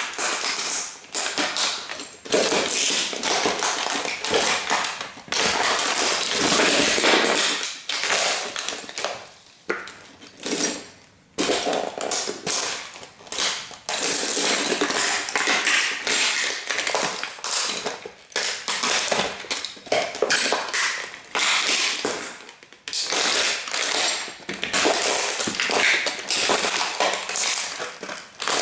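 Dr. Martens Jadon platform boots stomping on and grinding a Bugatti model toy car that is already in pieces: continuous crunching, cracking and clattering of breaking parts and scattering fragments. The stomping stops briefly a few times.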